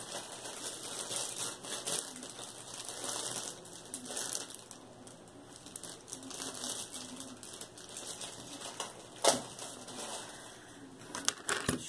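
Plastic bag of white modelling dough crinkling and rustling as it is handled, with a sharp tap about nine seconds in and a few quick clicks near the end.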